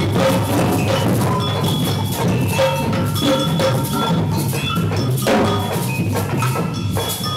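A group of young children playing samba percussion together: drums, sticks and small hand percussion in a dense, continuous clatter, with short ringing bell-like notes scattered through it.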